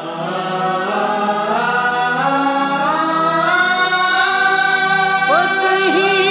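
Song intro: sustained chorus voices hold chords that swell in over the first second and climb step by step in pitch. Near the end a voice swoops in with gliding notes.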